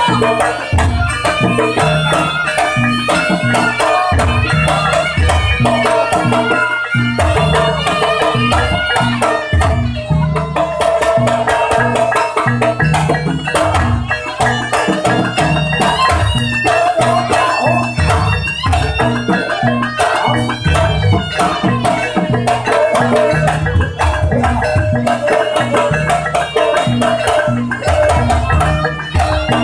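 Jaranan accompaniment music: kendang hand drums beating a quick, steady rhythm under a gamelan ensemble, with a high melody line that wavers in pitch.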